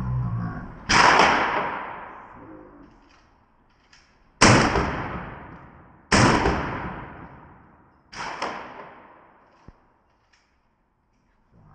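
Four shotgun shots inside an indoor range, each a sharp blast with a long echoing tail. Three are loud, at about one, four and six seconds in; the fourth, about eight seconds in, is weaker.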